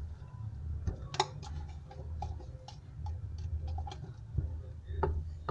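Sticky slime being kneaded and pressed by hand, giving a run of small, irregular clicks and pops.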